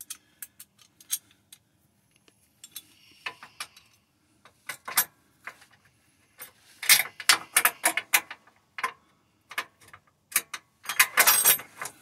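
Hand tools and bolt hardware clinking on metal as a hex bolt is worked by hand into the support-arm mount: scattered sharp metallic clicks, busiest about seven and eleven seconds in.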